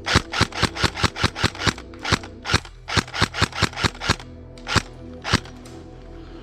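Airsoft gun firing a quick string of about nine sharp shots, roughly five a second, then more scattered single shots. The last two come about half a second apart, roughly five seconds in.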